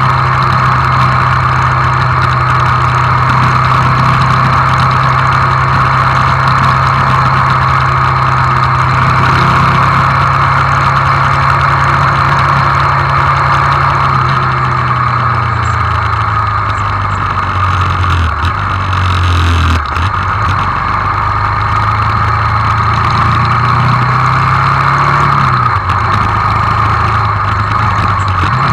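Hyosung GD250N's single-cylinder engine cruising steadily under a loud rush of wind. Past the middle its note drops as the bike slows, broken twice by gear changes, with a short rise in between.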